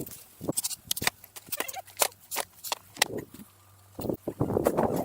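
Irregular sharp knocks and clacks, then a longer rough scraping sound about four seconds in, over a low steady hum.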